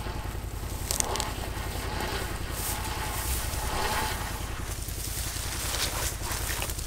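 Can-Am Defender HD10 side-by-side's V-twin engine running steadily with a low pulsing rumble, with a sharp click about a second in.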